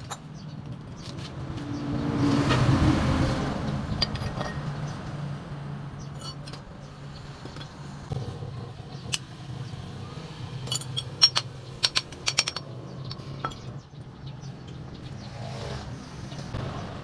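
Metal hand tools clicking and clinking against a car air-conditioning compressor's clutch assembly as it is taken apart, with a quick run of clinks about eleven to twelve seconds in. Underneath is a steady low traffic hum that swells about two seconds in.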